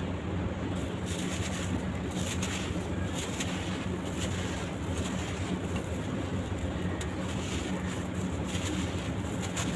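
Charcoal sand-cement block being crumbled, with soft, irregular crunches over a steady low hum.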